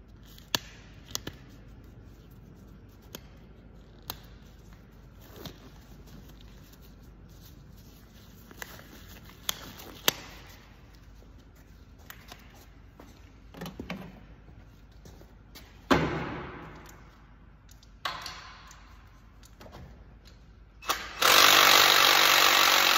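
Tools clicking and knocking on metal, with a sharp clang that rings out about two-thirds of the way through and a smaller one soon after. Near the end, a power tool runs loudly and steadily for about two seconds.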